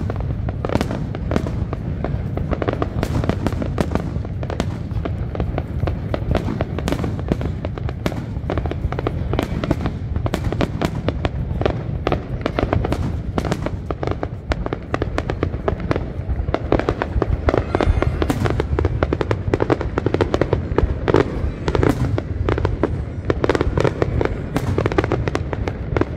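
Fireworks display going off in a dense, continuous barrage of sharp bangs and crackles, with a steady low rumble underneath.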